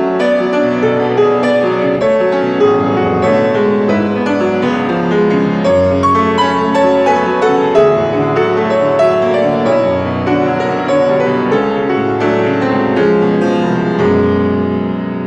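Solo grand piano being played: a continuous flow of notes and chords over sustained bass notes.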